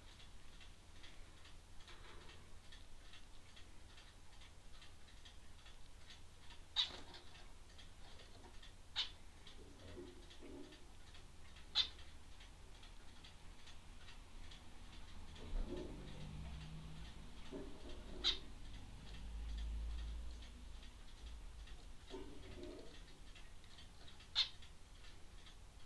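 A bird giving about five short, sharp, high-pitched chip-like calls, a few seconds apart, with faint low rustling between them.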